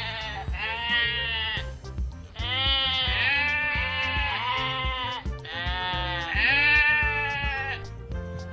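Sheep bleating: a string of long, wavering bleats, one after another, over background music.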